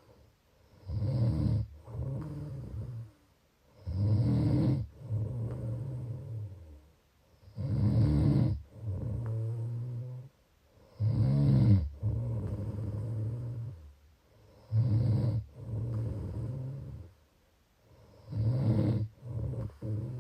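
A person snoring in a steady rhythm, about one breath every three and a half seconds. Each breath is a short loud snore followed by a longer, quieter low buzzing part.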